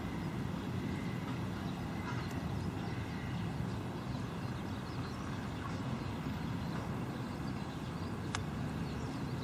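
Steady low rumbling outdoor noise with no clear rhythm, and one sharp click about eight seconds in.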